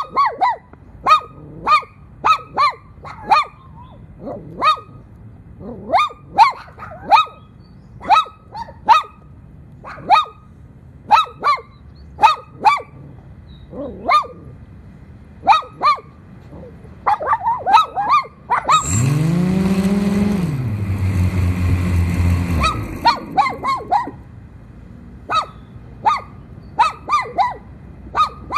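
A dog barking over and over, loud, short barks singly or in quick pairs at an uneven pace. For about four seconds in the second half the barking stops and a racing quadcopter's motors spin up and back down, a steady whir that rises and then falls in pitch.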